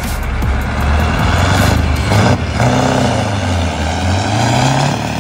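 Scania V8 diesel truck engine revving hard under heavy throttle, its pitch rising and falling as it is pushed through a burnout or donut.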